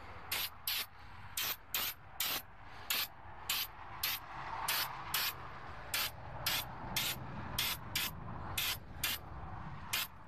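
Aerosol spray-paint can hissing in short bursts, about two a second.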